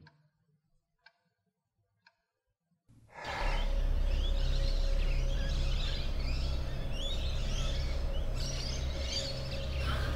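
Near silence with a few faint clicks, then about three seconds in a sudden switch to outdoor ambience: birds chirping repeatedly over a steady low rumble.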